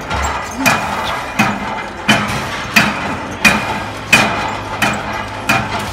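Chest press machine's weight stack clanking with each fast rep: a sharp metallic clank about every 0.7 seconds, eight in a row at an even pace.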